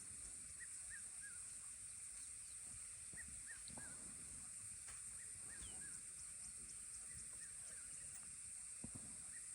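Faint outdoor ambience: short chirping bird calls repeated every second or so over a steady high hiss.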